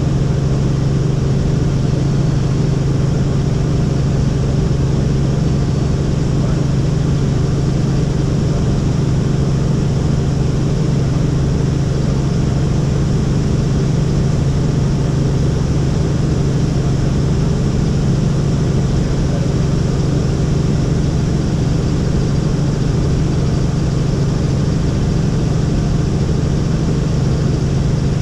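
Helicopter in flight: a steady, unbroken drone of engine and rotor.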